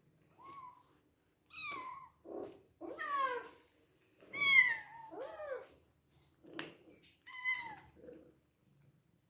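Bengal kittens meowing in a string of high calls that bend and fall in pitch, some overlapping, as they beg for food.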